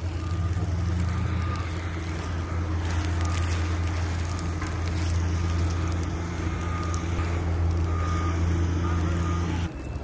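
A vehicle engine's steady low hum, holding a constant pitch, that drops away suddenly near the end.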